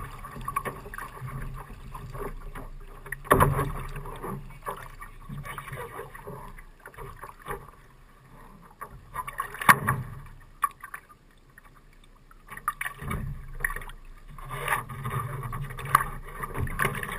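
Water sloshing and slapping against the hull of a capsized Laser dinghy lying on its side, with several sharp knocks and splashes, the loudest about ten seconds in. It goes quieter for a couple of seconds about two-thirds through.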